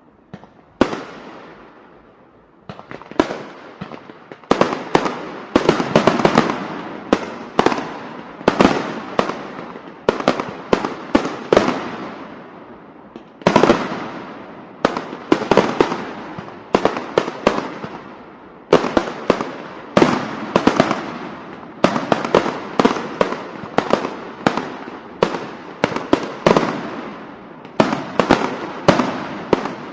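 Firecrackers going off: a single bang about a second in, then, from about three seconds on, long irregular runs of sharp bangs, many close together, each with an echoing tail.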